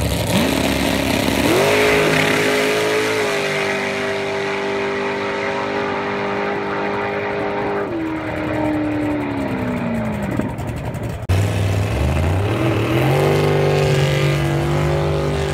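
Small dragster launching: its engine note climbs hard, holds high as it runs down the strip, then falls away about eight seconds in. About eleven seconds in the sound cuts to a second-generation Chevrolet Camaro's engine revving up and held at steady raised revs at the start line.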